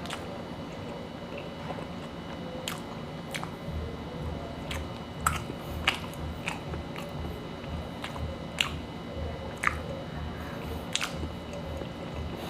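Close-up chewing of a chicken shawarma wrap: a steady chewing rhythm of about two chews a second, with sharp wet mouth clicks and smacks scattered through it.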